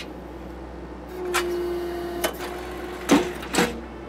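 Skid-steer-mounted Blue Diamond hydraulic post driver hammering a wooden post: a few sharp strikes roughly half a second to a second apart. Under them are the skid steer's steady engine hum and a steady hydraulic whine that comes in about a second in.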